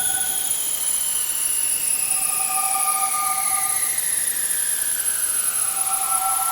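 Synthesized sci-fi spaceship engine sound effect: a steady loud hiss with high whining tones slowly falling in pitch, and a two-note hum that pulses on for about a second and a half every three seconds or so.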